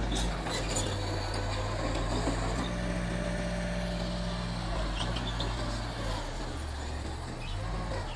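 Mitsubishi bulldozer's diesel engine running steadily, with a few sharp clanks in the first second; the engine note shifts lower about six seconds in.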